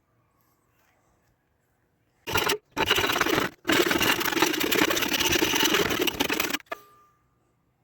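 Rasping scrape in three strokes, short, longer, then about three seconds long, ending in a sharp clack with a brief ring.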